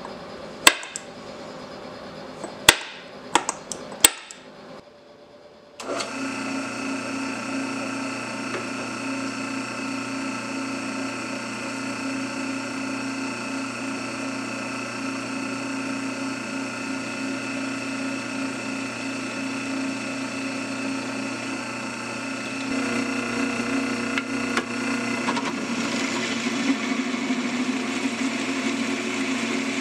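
A few sharp taps, then a drill press motor starts running with a steady hum. About three quarters of the way through, the twist drill cuts into a metal block and the sound becomes louder and rougher.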